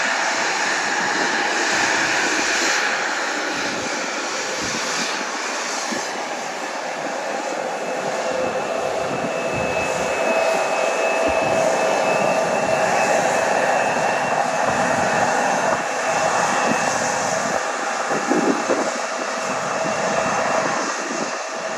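Jet airliner's engines running: a steady rush of noise with a thin high whine through the middle.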